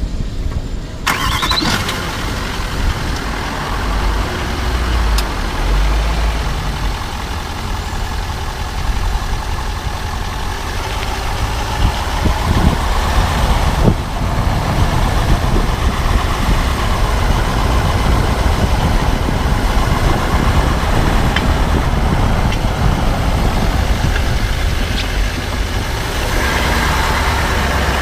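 2014 Range Rover Sport SDV8's 4.4-litre V8 diesel running, with a few sharp clicks at irregular intervals. The clicking is what the owner hears as coming from the front right wheel.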